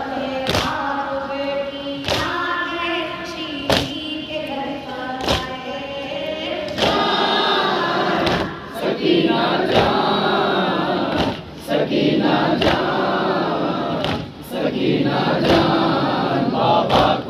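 A noha: a boy's voice reciting through a microphone, joined after about seven seconds by a group of men singing the refrain. Under it the mourners beat their chests in unison (matam), a thump about once every second and a half.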